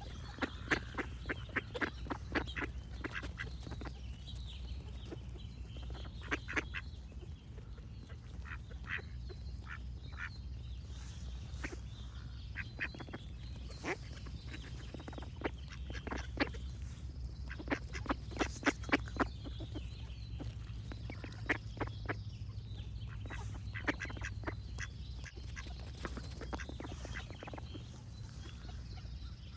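Ducks quacking in quick runs of short quacks, the runs coming again and again with short pauses between. Birds sing faintly behind them, over a steady low rumble.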